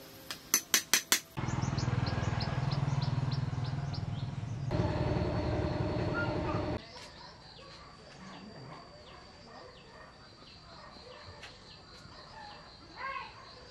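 Five sharp knocks in quick succession, then a machine running loudly for about five seconds, changing in tone about halfway and cutting off abruptly. Afterwards it is quieter, with chickens clucking and small birds chirping.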